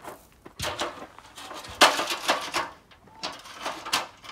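Aluminium stepladder being handled and set up: a run of knocks and scrapes, the loudest a sharp knock a little under halfway through.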